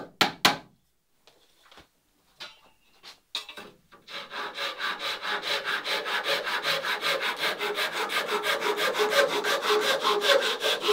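A few sharp hammer taps at the start. From about four seconds in comes a steady run of quick, rhythmic strokes of a hand tool cutting at the end of a wooden ribband, about six strokes a second.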